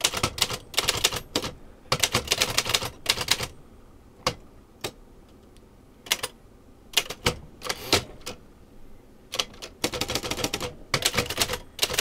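Remington No. 10 manual typewriter being typed on: quick runs of typebar strikes in the first three seconds and again near the end, with single, spaced-out strikes in the middle.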